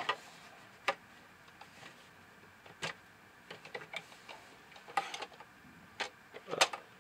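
A metal coin clicking and scraping against the plastic coin slot of a hollow toy coin bank as it is handled, in scattered sharp clicks a second or so apart, with a quick cluster near the end.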